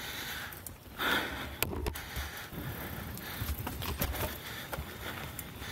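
A mountain biker breathing hard while riding, with one loud exhale about a second in. Under it runs a low rumble of tyres on a dirt trail and wind on the mic, with a few sharp clicks and rattles from the bike.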